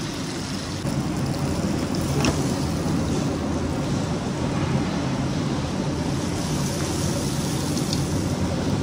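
Steady low roar of a commercial kitchen's range hood ventilation running over a gas range, with a couple of faint metal clinks about two seconds in and near the end.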